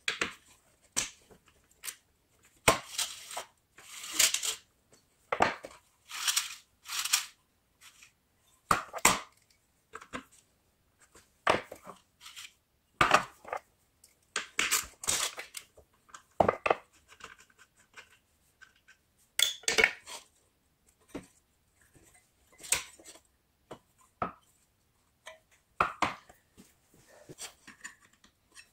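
Irregular metallic clinks, clicks and short scrapes from a Honda snowblower's recoil starter being taken apart by hand, as a screwdriver works at the starter reel inside its metal housing.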